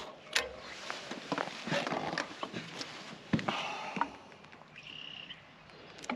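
Metal hose coupling and valve fittings on a propane railcar being handled and worked on the threads: scattered light clinks, scrapes and knocks, with one sharper knock a little past the middle.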